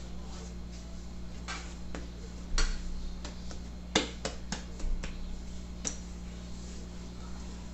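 Scattered light knocks and clicks of kitchen handling, the loudest about two and a half and four seconds in, over a steady low hum.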